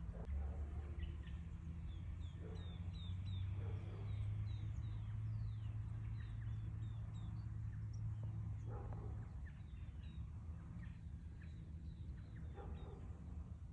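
Small birds chirping, with short falling chirps scattered throughout and a quick run of them about three seconds in, over a low steady rumble.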